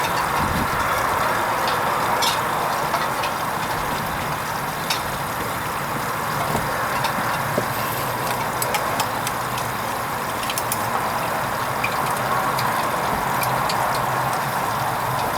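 Hoover Vision HVP16 washing machine running a wool rinse: a steady rushing noise with scattered light clicks.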